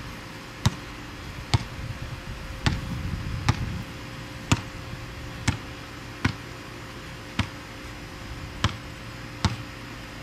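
Basketball bouncing on pavement about ten times, roughly once a second, each bounce a sharp single smack.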